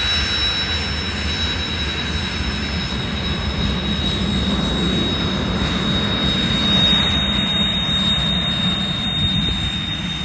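Kawasaki T-4 jet trainer's twin turbofan engines running as it taxis past: a steady high whine over a low rumble, swelling slightly as the jet comes broadside.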